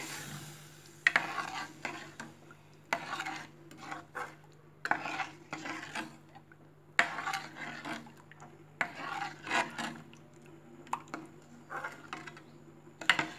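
Metal spoon stirring a thin buttermilk and gram-flour batter in a kadhai, scraping the pan in short repeated strokes about once a second.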